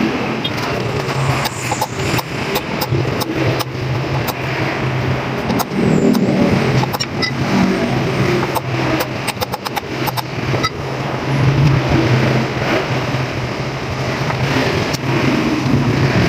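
A motor vehicle engine running steadily, with a string of sharp metallic clicks and knocks from hand tools working on a scooter's front wheel and tyre, thickest around the middle.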